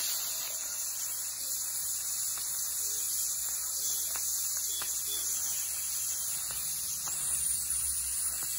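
Prestige Svachh stainless-steel pressure cooker venting steam, a steady hiss.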